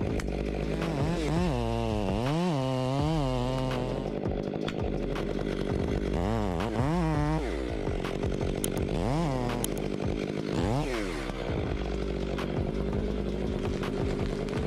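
Chainsaw engine running steadily and revving up and down several times as it cuts through wood, its pitch rising and falling in repeated swoops.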